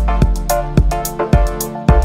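Electronic background music with a steady drum beat, about two beats a second, over held synth notes.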